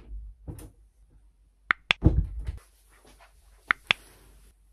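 Two double mouse clicks about two seconds apart, the click sound effects of an on-screen subscribe-and-bell button. Right after the first pair comes a short, low thud and rustle.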